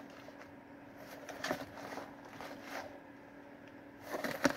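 Light rustles and taps of a cardboard snack box being handled, a few scattered ones and then a quicker cluster near the end, over a faint steady hum.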